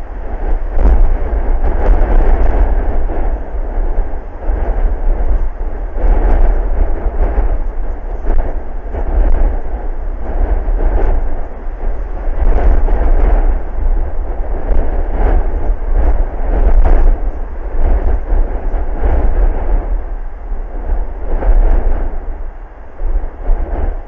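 Strong wind buffeting the camera microphone: a heavy low rumble with a rushing hiss that rises and falls with the gusts.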